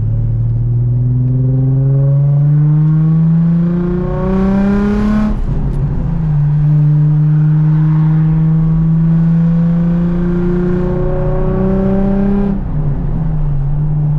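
Nissan 350Z's V6 engine, fitted with straight decats, a wide pipe and a blast-pipe exhaust, accelerating hard as heard from inside the car. The engine note climbs for about five seconds, then breaks off in a gear change. It pulls on with a slowly rising note, with another change near the end.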